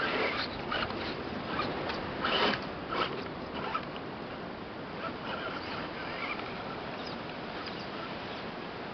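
Axial Wraith RC rock crawler's electric motor and gears whirring in short bursts as it climbs rocks, with tyres scrabbling on stone, mostly in the first few seconds, over a steady background hiss.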